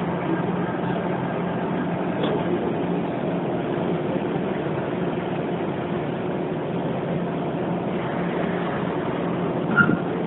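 Steady low hum and rumble inside a car of a Hokuso 7500-series commuter train, with one short sharp clink near the end.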